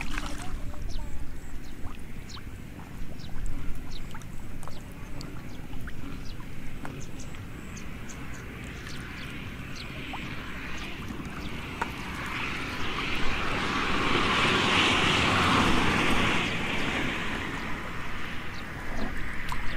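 Catfish splashing and thrashing in a shallow muddy puddle: many small, sharp splashes, with a stretch of louder, denser splashing about two-thirds of the way in.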